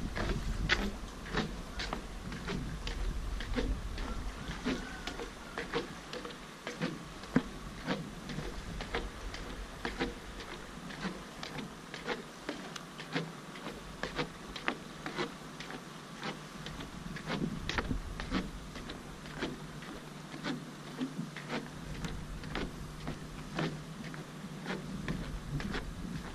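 Footsteps on a wooden plank pier: a steady run of short knocks and clacks from the boards underfoot.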